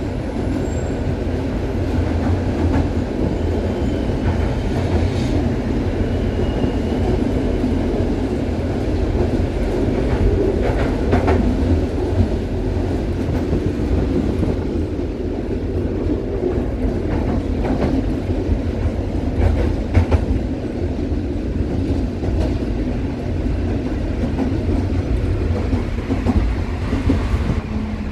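Konstal 105Na tram running along the track, heard from inside the passenger car: a steady low rumble of wheels and running gear, with a few sharp knocks as the wheels pass rail joints.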